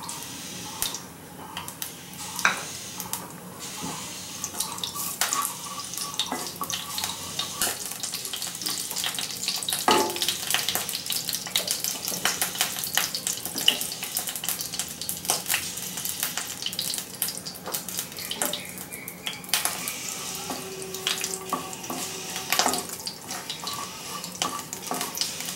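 Whole spices (bay leaf, cumin seeds and whole garam masala) sizzling and crackling in hot mustard oil in a nonstick kadai, with many small pops. A wooden spatula scrapes and knocks against the pan as they are stirred.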